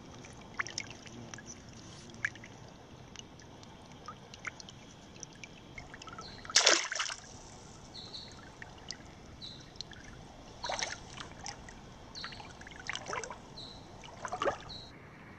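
Shallow creek water trickling over gravel, with several splashes. The loudest splash comes about six and a half seconds in, and smaller ones follow near the end.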